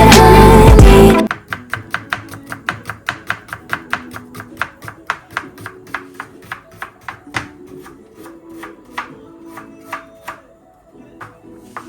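Loud background music cuts off about a second in. Then a knife chops food on a cutting board in quick, even strokes, about four or five a second, slowing to a few scattered chops near the end.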